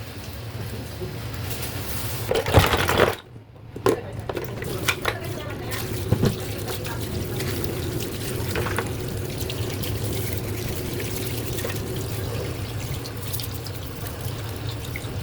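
Tap water running into a sink, with scattered knocks and a brief break about three seconds in.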